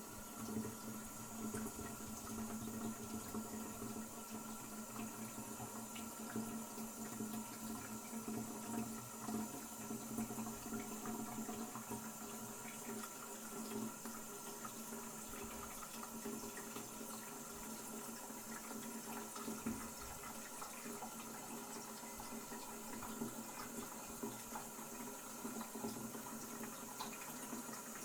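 Toilet cistern refilling after a flush: water running in steadily with the fill valve hissing.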